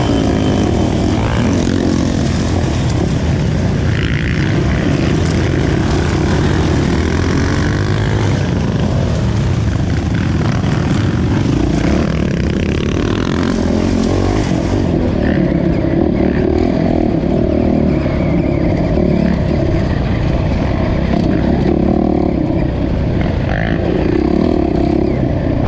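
Dirt bike engine running steadily as the bike is ridden along a dirt trail, loud and close to the microphone.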